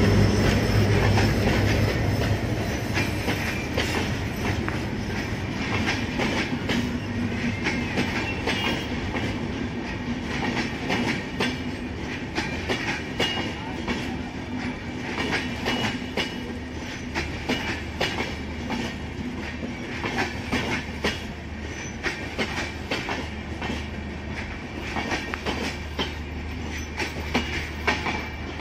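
LHB intercity passenger coaches rolling past, their wheels clacking steadily over the rail joints in a dense run of clicks over a continuous rumble, a little louder in the first couple of seconds.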